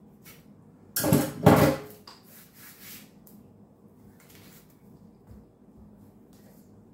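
A kitchen knife clattering twice in quick succession about a second in, as a banana is cut over a glass bowl, followed by faint soft handling sounds as the banana is peeled by hand.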